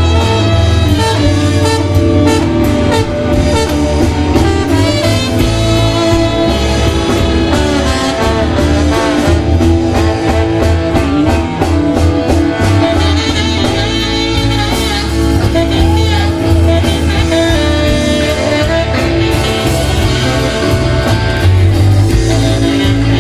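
Live blues-rock band jamming: saxophone, trumpet and trombone playing over electric bass guitar and drums, with electric guitar.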